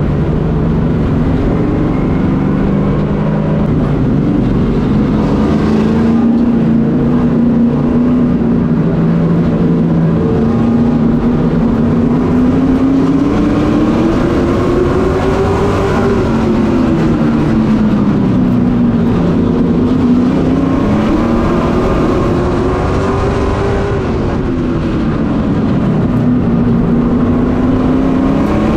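Race truck engine heard on board, loud and continuous. It holds a steady pitch for about the first ten seconds, then revs up and falls off about every seven to eight seconds, accelerating on the straights and lifting for the turns of a short oval.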